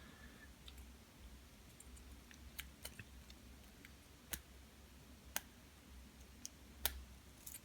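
Faint, sparse metallic clicks from a lock pick and tension wrench working the pins of an American 1100 series padlock during single-pin picking: about five sharp ticks, irregularly spaced, with a few softer ones between.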